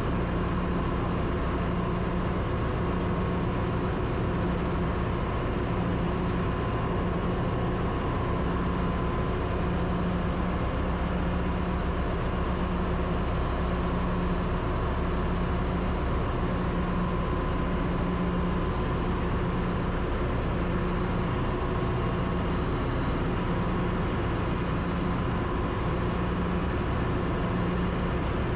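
Steady din of a ship's engine-room machinery running, a constant low hum with a steady tone and a low note that swells and fades every second or so.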